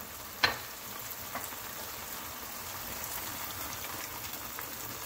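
Prawn and green-tomato curry sizzling steadily in a non-stick pan on the stove, with a sharp tap about half a second in.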